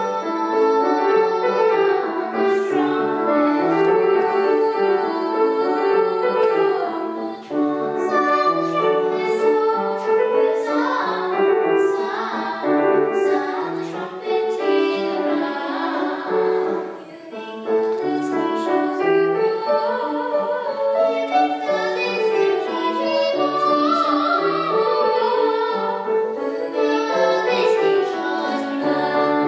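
Singing with piano accompaniment, the voice holding wavering notes over the piano chords.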